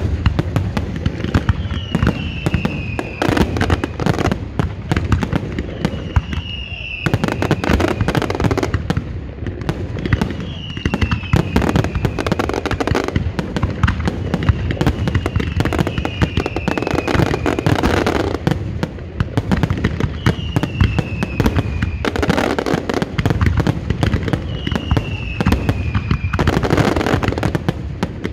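Fireworks finale barrage: a dense, continuous run of shell bursts and crackling reports with no letup. A short falling whistle cuts through every few seconds.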